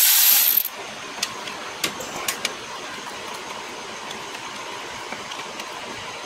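Cordless power driver spinning out a valve cover bolt on a small block Chevy V8, running with a high whirring hiss and stopping abruptly under a second in. Scattered light metallic clicks follow as the cover hardware is handled.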